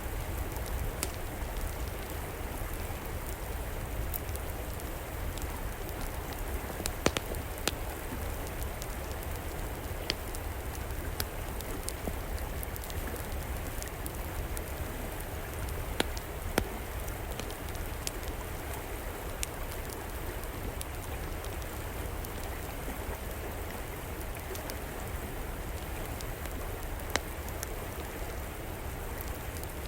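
Steady rushing of flowing river water, with an outdoor wood fire crackling over it and a few sharp, louder pops scattered through.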